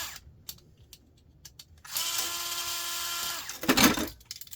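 A power drill runs for about a second and a half with a steady whine as it backs out a screw, winding down at the end. Right after, there is a loud knock as a part or tool is set down, with small clicks of handling around it.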